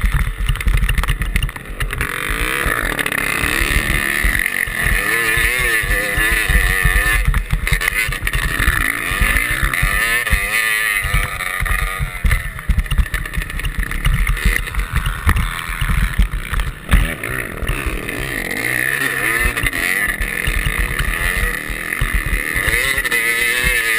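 Motocross bike engine revving up and down while towing on a rope over a snow track. Heavy wind buffets the microphone.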